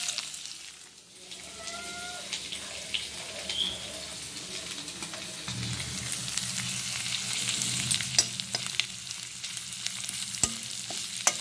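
Prawns and freshly added chopped onions sizzling in hot oil in a kadai, the prawns' water already cooked off so only the oil fries. A few sharp clicks come through as the mixture is stirred.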